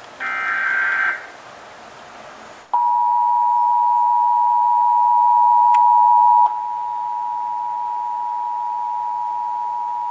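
Emergency Alert System test tones: a one-second burst of SAME header data tones, then, after a gap of about a second and a half, the EAS attention signal, a steady two-tone 853 and 960 Hz alarm. The alarm steps down in volume partway through.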